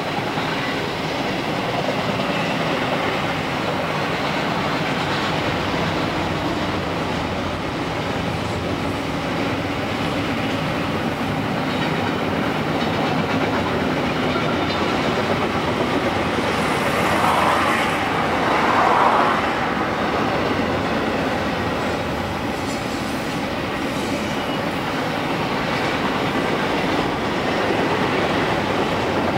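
Double-stack container freight train rolling past, its well cars' wheels clattering steadily over the rail joints, heard from inside a car. The noise swells briefly a little past the middle.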